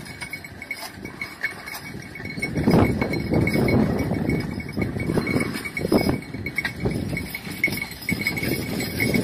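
Bells on working livestock ringing in a quick, uneven jingle, with louder low rumbles and thuds coming and going from about three seconds in.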